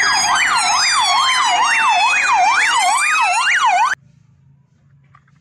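Police car sirens: a fast yelp sweeping up and down about three times a second, overlapping a slower wail that glides down and then rises again. It cuts off suddenly about four seconds in.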